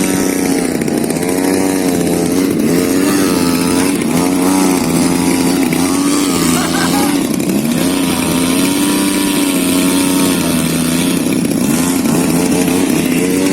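Extra 300 radio-controlled aerobatic model plane's engine buzzing steadily, its pitch rising and falling again and again as the plane throttles and swoops through manoeuvres.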